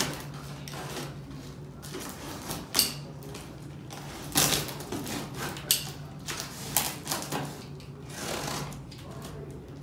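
Utility knife slitting packing tape on a cardboard box, in short scratchy strokes and clicks, followed near the end by the cardboard flaps rustling as they are pulled open.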